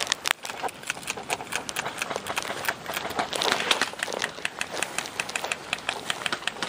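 Footsteps pushing through tall grass and brush, with the stalks rustling: a steady string of irregular soft knocks, several a second.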